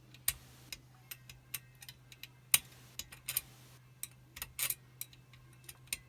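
Pick wire and tensioning tool working inside a Chubb Detector five-lever lock: irregular small clicks and brief scrapes as the levers are probed, the loudest click about two and a half seconds in.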